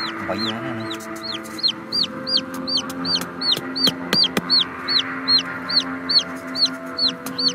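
A chick peeping over and over in short high peeps, about three a second. A few light taps come from a hammer driving thin bamboo stakes into sand.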